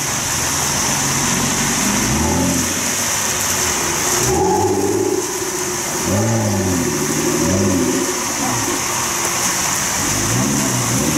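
Modified car engine revved in short blips, about five times, each a quick rise and fall in pitch, over the steady hiss of heavy rain and tyres on a wet road.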